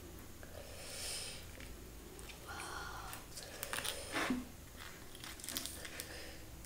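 Faint close-miked eating sounds: chewing, with fingers tearing a thick roti and picking through chicken curry in a bowl, giving soft clicks, tears and rustles.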